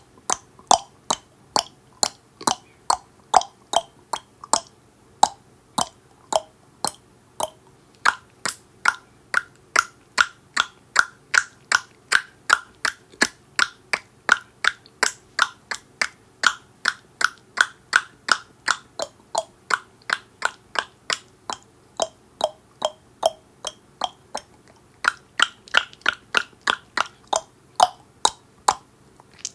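Repeated tongue clicks, about two to three a second in a steady rhythm. The pitch of the click moves from a lower, hollow pop in the first few seconds to a higher click through the middle, then varies near the end.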